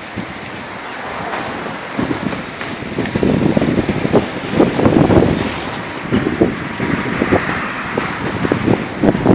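Wind buffeting the microphone of a moving bicycle, over a steady rush of tyres and air; the gusts grow louder about three seconds in.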